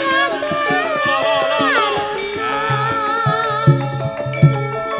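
Javanese gamelan music playing a gending: held metallophone tones under a wavering, gliding melody line, with low hand-drum strokes (kendang) marking the beat.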